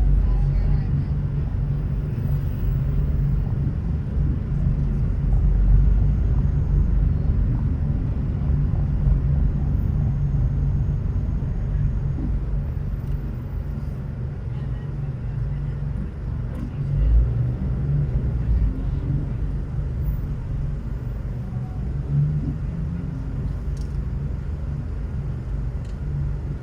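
A car driving on city roads: a steady low rumble of engine and tyre noise, with a brief louder low thump a little after halfway.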